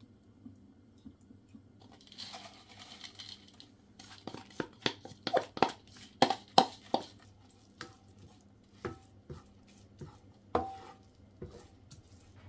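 Kitchen utensils and dishes being handled: a short rustle, then a quick run of clinks and knocks, some ringing briefly, followed by a few scattered knocks.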